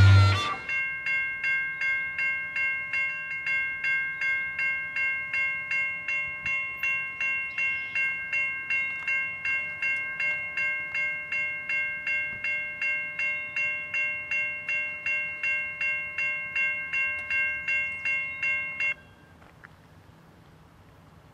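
Railroad grade crossing bell ringing steadily about twice a second while the crossing lights flash and the gates come down. It cuts off suddenly near the end, once the gates are fully lowered.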